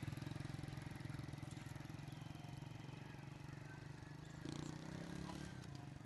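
Small motorcycle engine running as the bike rides away, its steady low putter fading, with a brief swell about four and a half seconds in.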